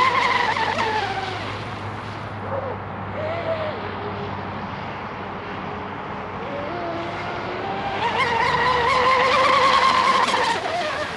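Brushless motor of a 36-inch RC catamaran boat (SSS 4082, 2200 kV, on 8S) whining as it runs across the water, the pitch rising and falling with the throttle. It eases off after about a second and a half, then comes back loud for a few seconds near the end.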